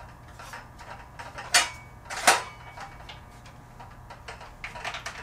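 Clicks and knocks from a Ryobi 18V One+ brushless cordless circular saw being handled as its depth adjustment and lock are worked, with two louder knocks about one and a half and two and a quarter seconds in and lighter clicks near the end, over a faint steady hum.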